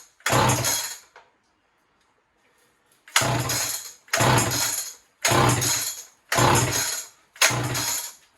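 Old Homelite chainsaw being pull-started: the recoil starter cord is yanked and the two-stroke engine turns over without firing. One pull ends about a second in, then after a short pause come five more pulls about a second apart, none catching.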